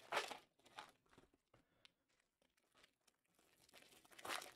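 Faint tearing and crinkling of Panini Prizm hobby card pack wrappers being torn open by hand, in short bursts, the strongest just after the start and near the end.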